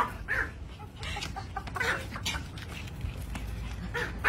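Small puppy giving a few short, high yaps and barks, one near the start, one about two seconds in and one near the end.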